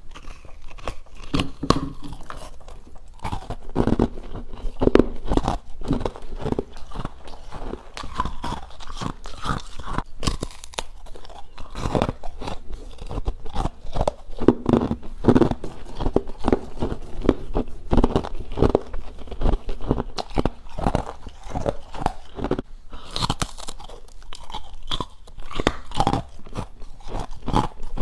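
A person biting and chewing freezer frost close to the microphone: a constant stream of crisp, crackly crunches.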